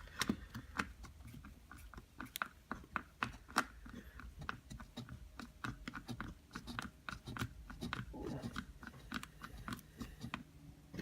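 Faint run of small, irregular clicks and ticks as the central screw is driven with a screwdriver into the chainsaw's plastic recoil-starter housing to hold the rope pulley.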